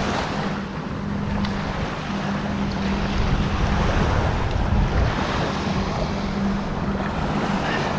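Small surf waves washing up and draining back on a sandy beach, with wind buffeting the microphone in a low, unsteady rumble.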